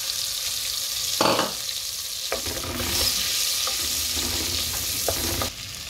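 Chopped garlic sizzling in melted butter in a metal pot while a wooden spoon stirs it, with a steady hiss throughout. The spoon knocks against the pot a few times, loudest about a second in.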